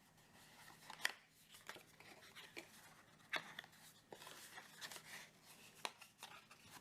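Near silence with a scattering of faint, short clicks and light rustles from a small item and its packaging being handled.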